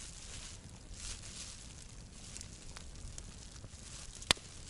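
Campfire burning with a few faint scattered crackles and one sharp loud pop about four seconds in, over a low steady rumble.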